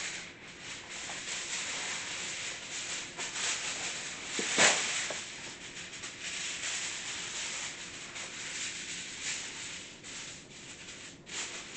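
Aluminium foil crinkling and rustling as it is handled and pressed over an oven rack, with a louder crackle about four and a half seconds in.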